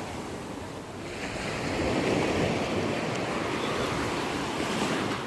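Sea surf washing onto the shore, swelling about a second in as a wave comes up the beach.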